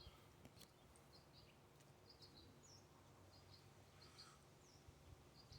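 Near silence, with faint small bird chirps repeating in the background and a few light clicks.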